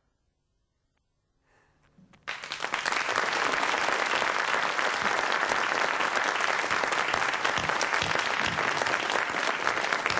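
Near silence for about two seconds, then applause from a studio audience breaks out suddenly and continues steadily.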